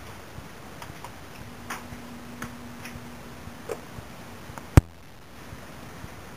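Light, irregular knocks and ticks of footsteps and a handheld camera being carried through a boat's interior, under a faint steady hum. A single sharp click comes near the end.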